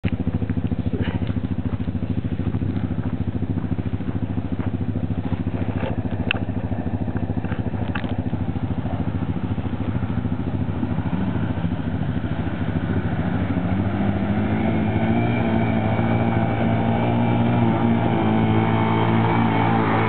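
Off-road vehicle engines running steadily, with a few light knocks in the first eight seconds. From about halfway a quad (ATV) engine draws nearer, growing louder and rising in pitch, and passes close by at the end.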